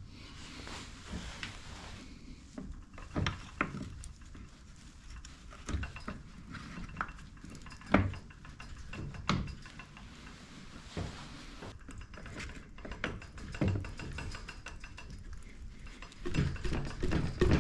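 Metal tools and motorcycle suspension parts clinking and knocking during hand work on a trials bike's rear suspension: irregular sharp taps, the loudest about eight seconds in, with a busier cluster of knocks near the end.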